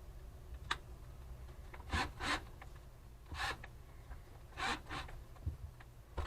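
Solder wire being wound by hand onto a homemade spool: a few short scraping rubs at irregular intervals, with light clicks of the wire and spool being handled.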